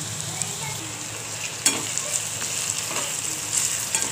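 Chopped onions sizzling in hot oil in a metal kadhai while a metal spatula stirs and scrapes them, with one sharp clink of the spatula against the pan about one and a half seconds in.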